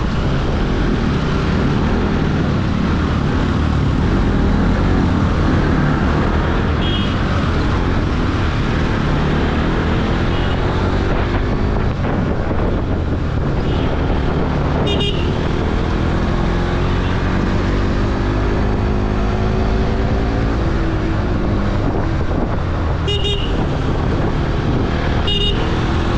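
Motorcycle engine running and changing pitch as it speeds up and slows through traffic, under steady wind rush on the microphone. Short vehicle-horn toots are heard, the clearest about halfway through and twice near the end.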